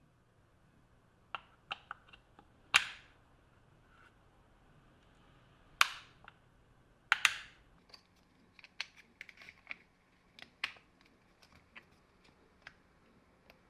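Irregular sharp clicks and knocks of hard parts and tools being handled, with a few louder knocks about three, six and seven seconds in.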